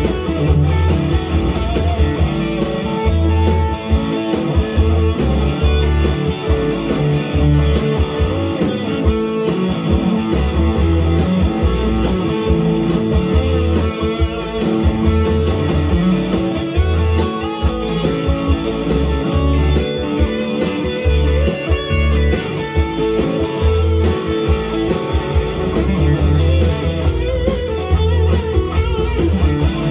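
Harley Benton HB TE-30 BE Telecaster-style electric guitar, played continuously through an amplifier and picked near the bridge.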